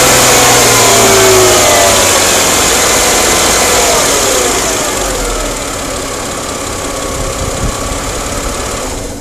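Chrysler Crossfire's 3.2-litre V6 engine running with a ticking noise whose cause the owner doesn't know. The revs fall back over the first few seconds and the engine then settles lower and quieter.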